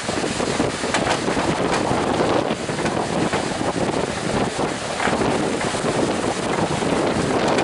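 Strong gale-force wind buffeting the microphone with a steady rush and scattered crackles, over heavy surf breaking.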